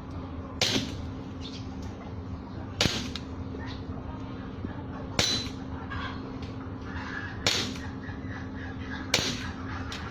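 Gas-powered airsoft Glock 27 pistol firing plastic BBs, one shot at a time, five sharp cracks about two seconds apart.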